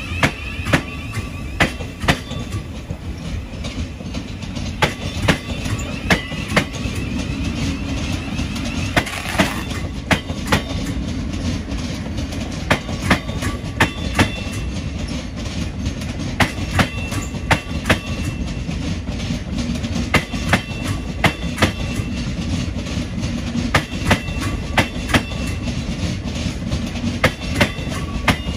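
Thameslink Class 700 electric multiple unit rolling slowly out over pointwork. Its wheels clack sharply and repeatedly, often in quick pairs, over rail joints and crossings, above a steady low rumble of the running gear. Brief faint wheel squeals come in the second half.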